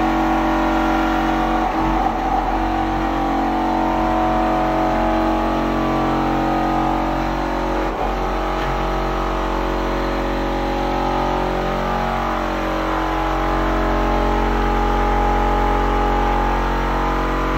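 Background music: steady sustained chords that shift now and then.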